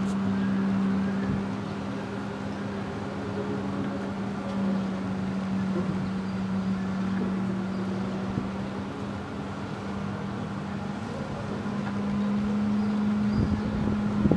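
A motor running steadily with a constant low hum, with a few knocks near the end.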